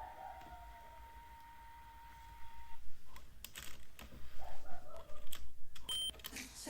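A steady high tone cuts off about three seconds in. It is followed by a rapid, irregular run of plastic clicks and clacks: the controls of an AIWA HS-JX849 cassette Walkman being operated by hand.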